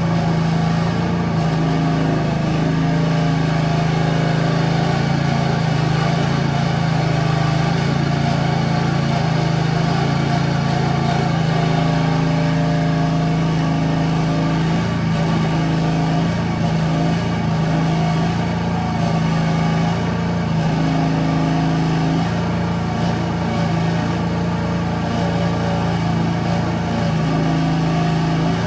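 Engine of a 1-ton Chinese-built mini excavator running steadily while it digs, its pitch shifting slightly now and then.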